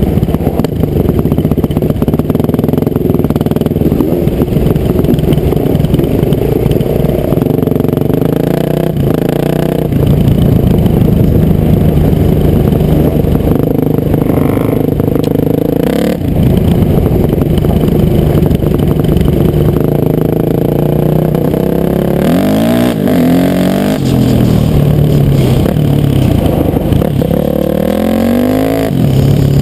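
Honda CR500 two-stroke motocross engine running loud, revving up and down the whole time, with the pitch climbing steeply twice near the end.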